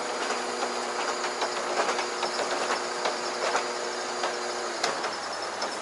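Truck-mounted ladder lift running as its platform travels down the ladder: a steady mechanical hum with irregular clicking and rattling. The hum cuts off near the end.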